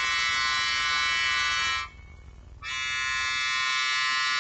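Two long, high-pitched string chords held steady. The first, in equal temperament, cuts off about two seconds in. After a short pause, the same chord sounds again in just intonation.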